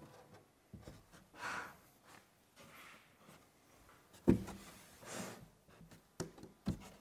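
A wide pine board panel handled on a wooden workbench: soft rubbing and sliding, then a solid wooden thump about four seconds in as it is stood upright on the bench, and two lighter knocks near the end.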